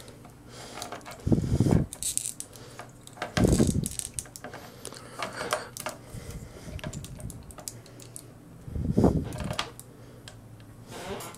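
Hands handling and posing a plastic action figure: small plastic clicks and rattles from its joints and parts, with three low thumps about a second and a half in, three and a half seconds in and nine seconds in.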